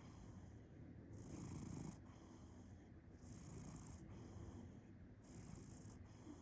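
A sleeping domestic cat purring and snoring at once: a faint, low, rough rumble that swells and fades with each slow breath.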